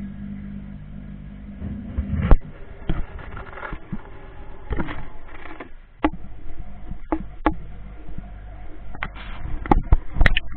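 Irregular knocks and clicks in an aquarium tank, the loudest about two seconds in and a quick cluster near the end, over a low steady hum that drops away just before the first knock.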